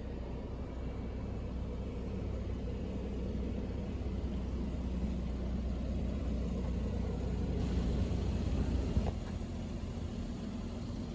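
A steady low rumble that drops away sharply about nine seconds in, with a light knock at that moment.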